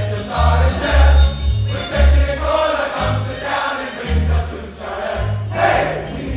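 Upbeat Christmas music with jingle bells ringing over a bouncing bass line, with voices singing in the mix.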